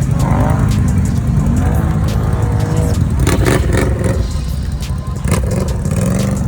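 ATV engine running, its pitch rising and falling as it revs, with a cluster of sharp knocks and clicks about three seconds in.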